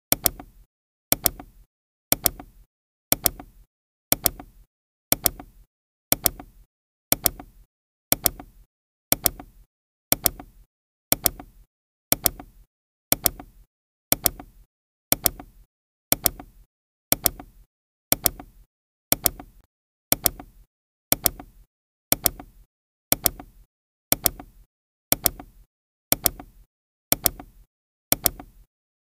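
Countdown timer's tick sound effect: one sharp click each second, evenly paced, each with a short fading tail.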